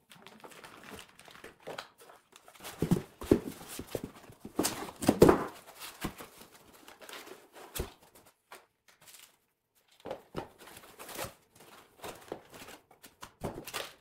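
Unpacking sounds: foam packaging rubbing and scraping, with irregular knocks and thumps as the printer's metal parts are lifted out and set down on a wooden floor. The loudest knocks come about five seconds in.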